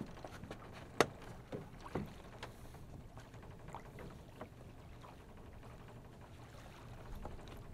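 Small boat drifting on open water: a low rumble of wind and water against the hull. A handful of sharp knocks come between about one and two and a half seconds in, the loudest about a second in, as gear is handled at the bow.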